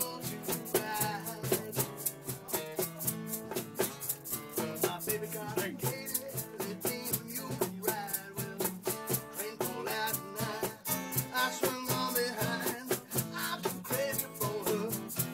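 Acoustic folk jam: strummed acoustic guitar with an egg shaker keeping a steady, fast rhythm, and a man singing.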